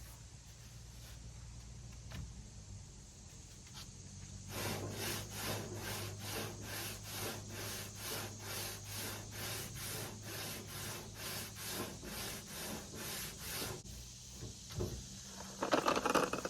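Sandpaper rubbed back and forth by hand over Bondo body filler in steady strokes, about two a second, starting about four seconds in and stopping near the end. The worker believes the filler needs a little more curing.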